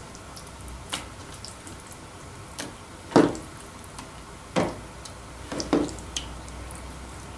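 Wet squelches and soft slaps of raw beef lip pieces being pressed and arranged by hand on oiled parchment paper, several short ones, the loudest a little after three seconds in.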